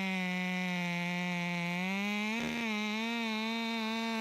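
Ported Husqvarna T540 XP Mark III top-handle two-stroke chainsaw held at full throttle while cutting into a tree trunk, a steady high engine note. A brief rasp comes about two and a half seconds in, after which the pitch lifts slightly.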